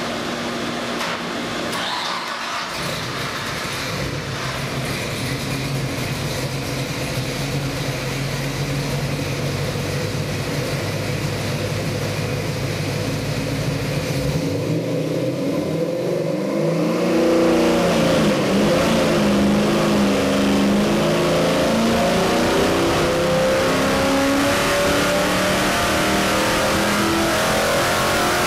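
Ford 347 stroker small-block V8 running on an engine dyno. It idles steadily at about 800 rpm, then, about seventeen seconds in, it is loaded into a sweep pull and gets louder, the pitch climbing steadily past 5,000 rpm.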